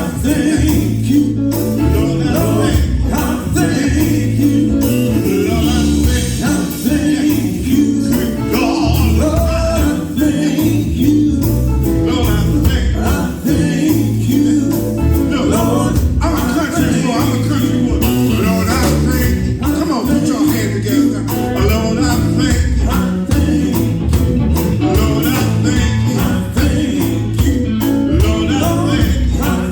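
Live gospel band music: a full band with drums and heavy bass keeping a steady beat, with singing over it.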